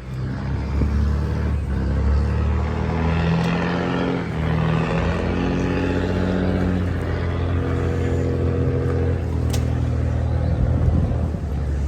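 Engine running steadily, its pitch shifting up and down in steps through the middle, with a short sharp click about nine and a half seconds in.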